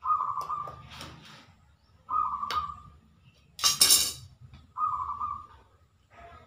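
Steel knife blade clinking: three metallic strikes, each ringing briefly, with a louder harsh scrape or clatter between the second and third.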